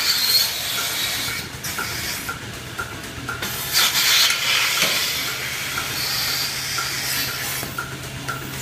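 Milking-machine vacuum hissing as air is sucked into the teat cups while a milker unit is hung on a cow. The hiss swells in bursts over a steady low machinery hum and a faint regular ticking.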